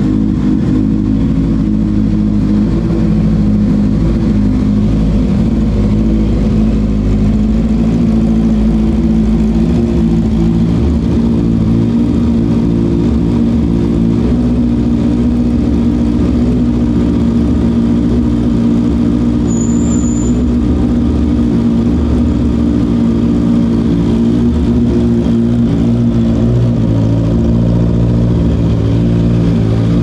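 Honda CB650R's inline-four engine idling steadily just after a cold start, breathing through an aftermarket Orion Shorty exhaust.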